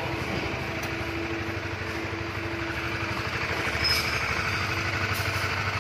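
Honda CB150R's liquid-cooled single-cylinder engine idling steadily with an even pulse, freshly rebuilt with a high-dome piston and BRT S1 camshaft and being run up to check for abnormal engine noise.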